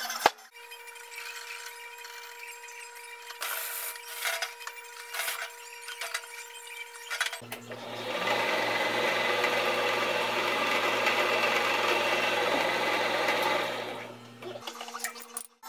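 One sharp click of a centre punch marking a flat metal bar. About seven seconds in, a drill press motor starts and runs with a steady hum while the bit cuts into the bar for about six seconds. The cutting stops first, and the motor shuts off shortly after.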